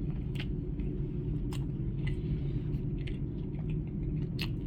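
A person chewing a mouthful of cornbread close to the microphone, with scattered short wet mouth clicks, over a steady low rumble.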